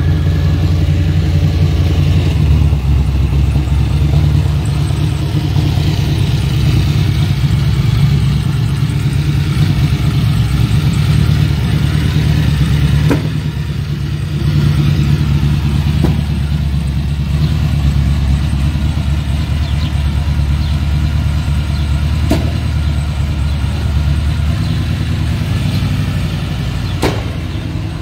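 Chevrolet Camaro Z28 V8 running through its new mufflers with a steady, deep exhaust rumble. A few short, sharp pops crack out across the run.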